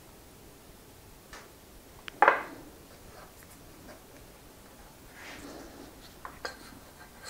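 Small metal parts being handled: a few light clicks, then one loud ringing clink about two seconds in as a metal nut from the wheel's axle is set down on the table. A soft rubbing follows as hands take hold of the tyre, with a few small clicks near the end.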